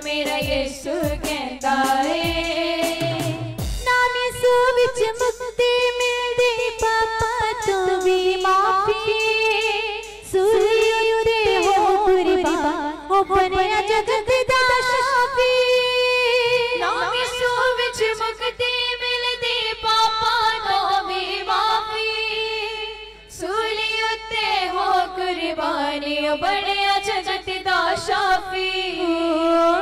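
A worship group singing a Punjabi Christian worship song into microphones, one melody line sung in unison over a steady rhythmic beat.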